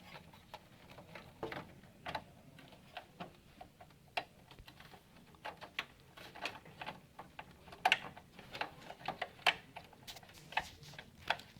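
Irregular small clicks and taps of a cable's plastic plug being fiddled onto a header on a desktop computer's motherboard, the plug reluctant to seat, with a few sharper clicks near the end.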